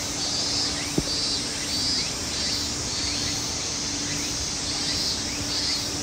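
Insects chirring in a repeating pulse, over steady background noise with a low steady hum; a single sharp click about a second in.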